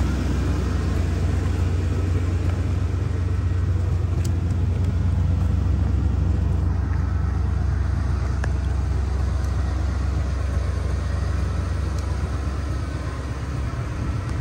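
Vehicle engine idling: a steady, unchanging low rumble.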